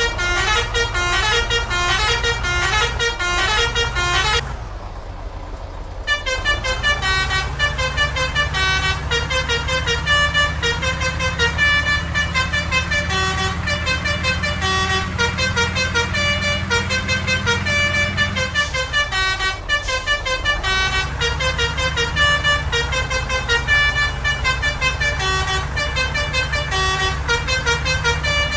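Bus 'telolet' horn, a multi-trumpet musical air horn, playing quick stepped jingles over and over, with the bus's engine running underneath. The horn drops out for about a second and a half about four seconds in, then starts up again.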